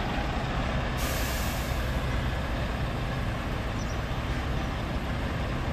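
Scania R520's 16-litre V8 diesel running steadily as the tractor-trailer manoeuvres at walking pace, with a hiss of compressed air from the air brakes about a second in, lasting about a second.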